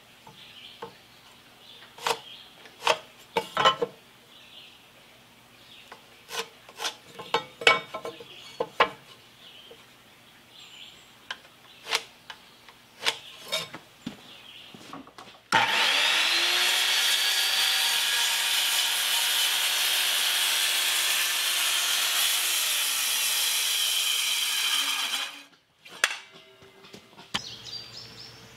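Light taps and clicks as a board is marked with a metal speed square and pencil, then an electric saw spins up with a rising whine and cuts through the pressure-treated wooden board, running steadily for about ten seconds before it stops abruptly.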